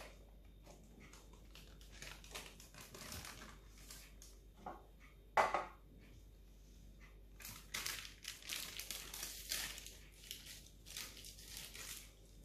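Baking paper crinkling and rustling as a set chocolate slab is lifted out of a metal loaf tin and the paper folded back, with one sharp knock about five seconds in as something is set down.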